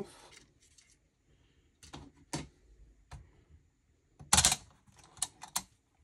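Plastic and metal parts of a Dell OptiPlex 7010 USFF case being handled: a series of short clicks and clatters as the detached front bezel is put aside and the metal drive cage is handled, with the loudest clatter a little past four seconds in.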